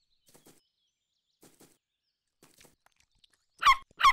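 Cartoon puppy giving two short, high yips near the end, each falling in pitch, after a few faint soft clicks.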